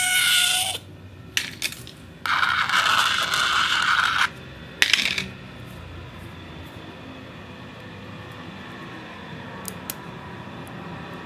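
An object scraping and rattling against a spinning turntable, with a metallic clinking character. There are two loud scrapes, the first with a ringing squeal in it, a few clicks between them, and a sharp clink about five seconds in. After that comes a quieter steady whir with occasional light ticks.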